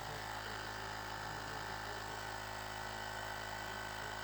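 A steady, unchanging hum with hiss, several fixed low tones over an even noise, which cuts off abruptly near the end.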